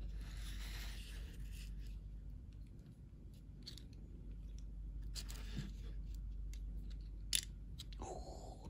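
Faint clicks and scrapes of a small steel pick and tiny ball bearings against the plastic housing of a Mercedes power seat switch being reassembled, with one sharper click about seven seconds in and a short scratchy rustle near the end. A low steady hum runs underneath.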